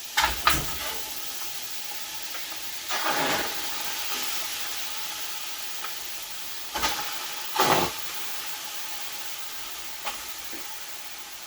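Lamb sizzling and hissing in a pot of hot curry as it starts to steam, the sizzle slowly dying down, with several short knocks against the pot.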